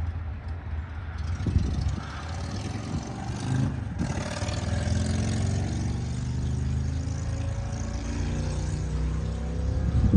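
An engine running steadily, its pitch slowly rising over the last several seconds.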